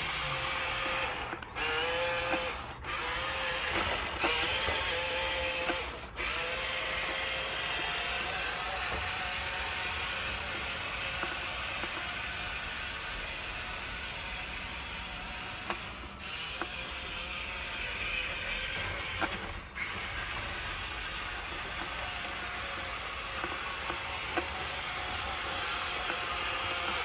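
Remote-control dump truck's electric drive motor and gearbox whirring with a ratcheting gear noise as it drives. In the first few seconds it runs in short bursts with a rising and falling whine, then keeps running, stopping briefly a few times.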